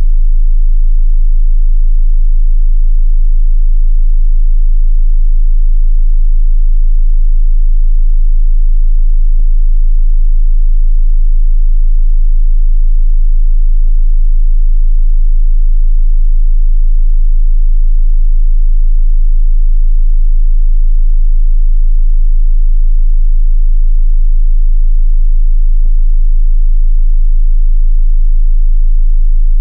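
Steady, loud 27 Hz sine-wave test tone, a continuous deep sub-bass hum used for testing subwoofers.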